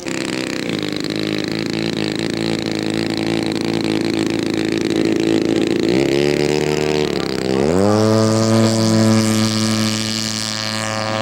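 Radio-control model airplane engine running steadily. About six seconds in, the throttle drops briefly, then opens up again to a higher steady pitch.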